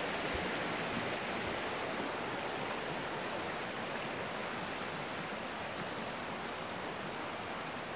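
Steady rushing of water flowing from the Bigăr spring, an even hiss that eases off slightly towards the end.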